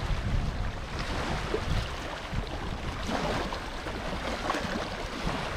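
Wind buffeting the microphone in a low, uneven rumble, with faint water lapping beneath it.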